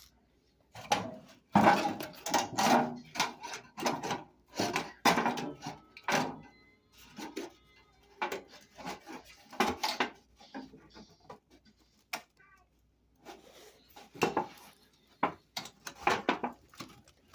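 A floor register vent being handled and pushed into its wooden floor opening: an irregular run of knocks, taps and scrapes of metal against wood.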